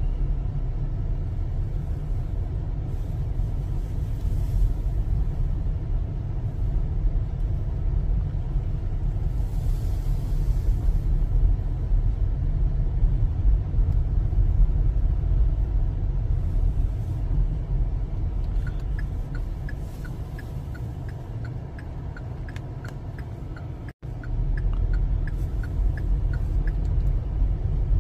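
Steady low rumble of a car driving slowly, heard from inside the cabin. In the second half a run of light, evenly spaced ticks sits over it, and the sound drops out for an instant near the end.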